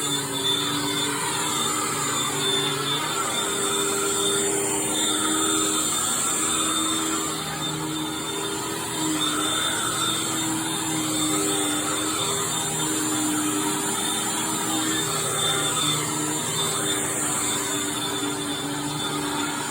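Hoover Tempo upright vacuum cleaner running steadily: a motor hum with a rush of air, its pitch shifting slightly now and then.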